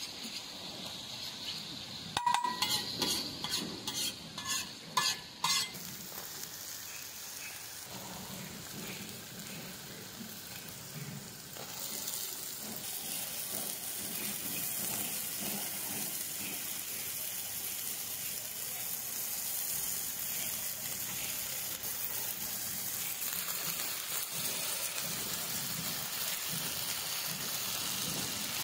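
Food frying and sizzling in a pan as it is stirred. About two seconds in, a spatula knocks against the pan several times in quick succession, and from about twelve seconds the sizzling grows louder and steadier.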